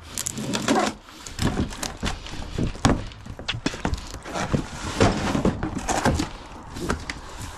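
Irregular knocks, clunks and clatter of hard objects being handled and set down, in quick succession.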